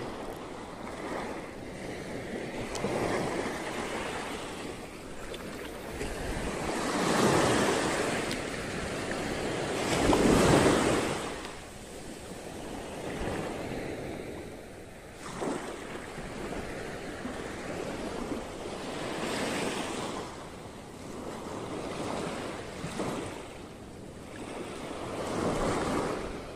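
Small waves washing up a sandy beach and drawing back, swelling and fading every few seconds, the loudest swell about ten seconds in, with wind on the microphone.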